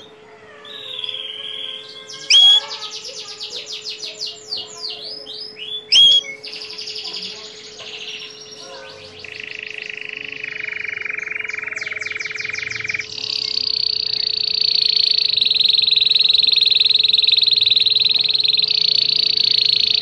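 Domestic canary singing: a few loud sharp rising notes in the first six seconds, then a run of fast rattling trills, the last held without a break for the final seven seconds or so. A faint steady hum sits underneath.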